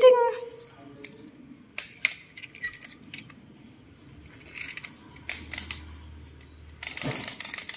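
Wind-up hopping toy chick: scattered small plastic clicks as it is handled and wound, then, about seven seconds in, its clockwork starts running with a fast, dense ticking rattle.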